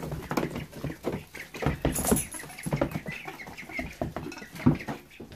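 A group of Silver Appleyard, Welsh Harlequin and Rouen ducklings peeping as they eat lettuce, with many short knocks and rustles from their feet and bills in the wood shavings.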